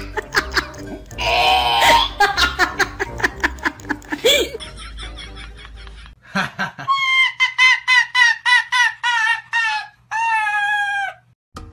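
A busy mix of sound for the first few seconds. Then a dog gives a quick run of short, high yelping cries, about four or five a second, ending in one longer, slowly falling cry near the end.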